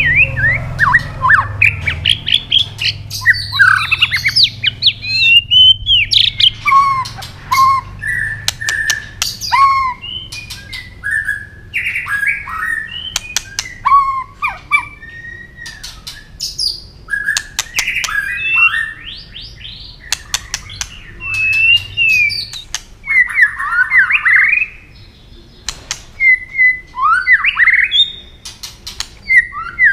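White-rumped shama singing a loud, varied song of short whistled phrases that glide up and down, broken by many sharp clicking 'tak' notes and a few harsh scratchy notes.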